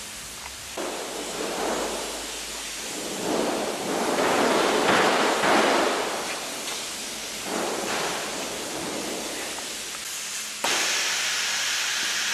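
Welding arc hissing, swelling and fading in waves, then switching abruptly near the end to a louder, steadier, higher hiss.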